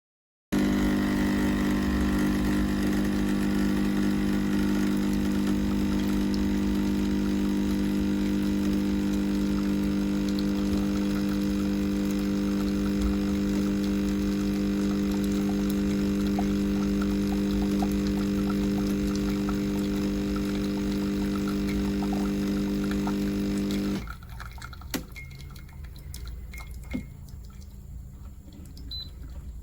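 Pump of a Cecotec Power Instant-ccino semi-automatic espresso machine running with a steady hum while it pushes water through, then cutting off abruptly about 24 seconds in. A few light clicks and knocks follow.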